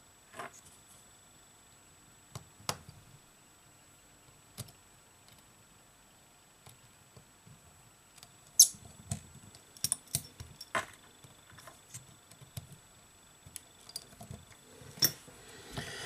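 Scattered small clicks and taps of tools and small parts on an iPhone 7 being put back together, with a sharp click about halfway through followed by a quick run of taps.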